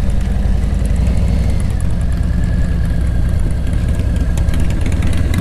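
A Harley-Davidson Street Glide Special's Milwaukee-Eight V-twin running steadily at low revs, picked up by the rider's helmet microphone as a steady low rumble.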